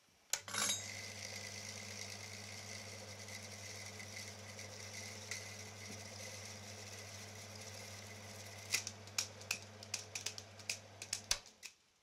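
Bauer T10 S Normal 8 film projector switched on with a click and rewinding film: the motor runs with a steady hum and a light whir. Over the last few seconds the loose end of the film slaps in a run of sharp, irregular clicks as the reel empties, and the motor stops shortly before the end.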